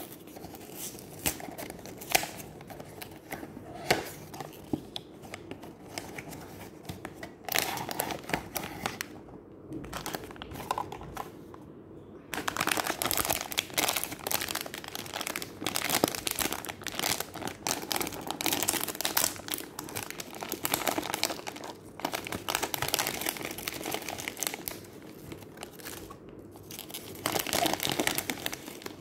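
A blind-box figure's printed plastic wrapper crinkling and rustling as it is handled, after scattered clicks and rustles of the cardboard box being opened. The crinkling turns dense and loud from about halfway, then eases off and gives one last loud burst near the end.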